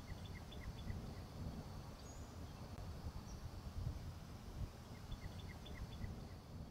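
Faint outdoor ambience: a low, uneven rumble with small birds chirping. There is a quick run of about half a dozen short chirps near the start and again about five seconds in, with a couple of brief, thin, high whistles between them.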